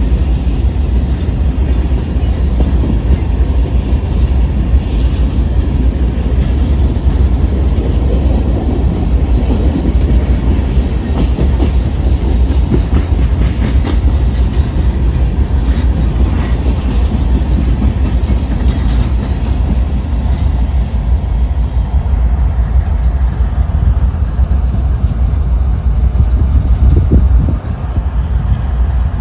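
Freight train rolling past, its steel wheels clicking over rail joints above a heavy, steady low rumble.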